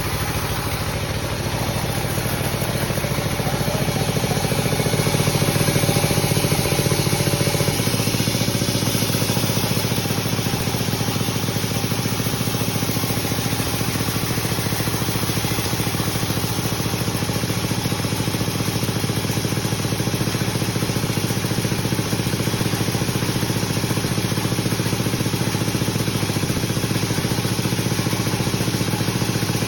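Sawmill machinery running steadily, with a continuous engine-like hum that grows somewhat louder around four to eight seconds in.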